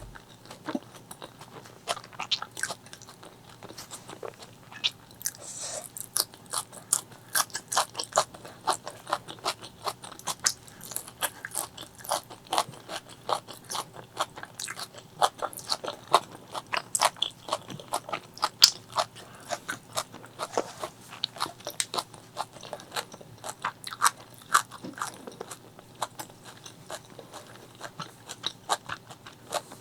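Close-miked chewing and crunching of a spicy chicken liver, gizzard and rice meal: a steady run of irregular wet crunches and mouth clicks, with no pause.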